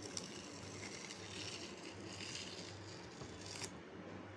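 Masking tape being peeled off the edge of watercolour paper: a faint tearing scrape, with a sharp click near the start and another near the end, over a low steady hum.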